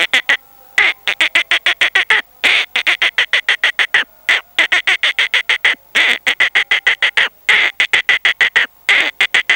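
A man's mouth imitation of a squirrel's chattering call: rapid sharp chips, about seven or eight a second, in runs of a second or two with short breaks between them.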